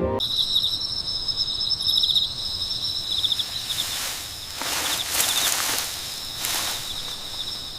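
Crickets chirping in a steady high trill with pulsed chirps. A couple of brief hissing swells rise over them in the middle and near the end.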